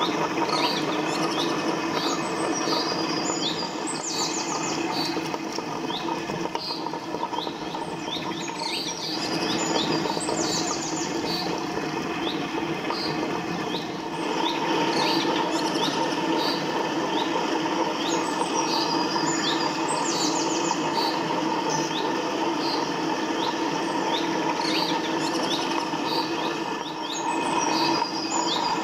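Table-top wet grinder running steadily, its stone rollers turning in the rotating steel drum as they grind soaked chillies and turmeric into masala paste. A louder hum comes in about halfway through. Short bird-like chirps recur about every ten seconds over it.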